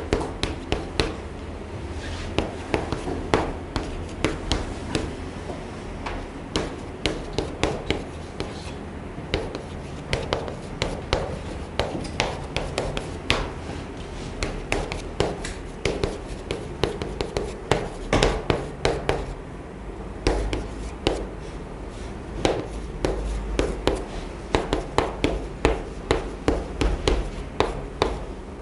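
Chalk writing on a blackboard: an irregular run of sharp taps and short scrapes, several a second, as the strokes go down.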